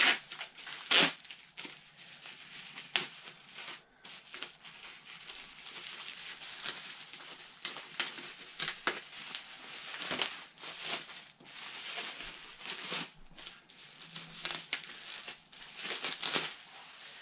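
Clear plastic wrapping crinkling and crackling as it is pulled off a boxed vinyl figure, with a few sharp louder cracks in the first few seconds.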